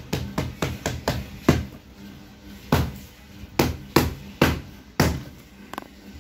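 Repeated sharp thuds of a heavy round hand-held pounder striking a stack of folded paper envelopes on a table to press the folds flat. Quick strikes come about four a second for the first second and a half, then single blows at uneven intervals of about half a second to a second.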